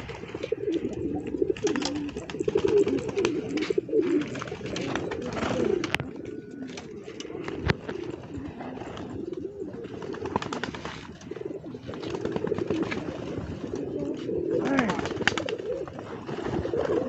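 Domestic pigeons cooing, a low wavering coo that goes on almost without pause, with scattered light clicks and taps.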